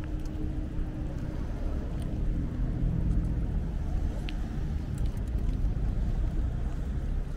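Bicycle rolling over cobblestone paving: a steady low rumble from the tyres on the stones, with one brief high chirp about four seconds in.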